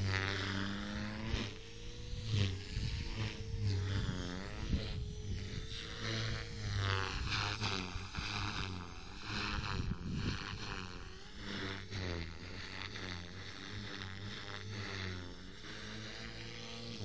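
MSH Mini Protos electric RC helicopter in flight: its rotor and motor whine runs throughout, rising and falling in pitch as it manoeuvres.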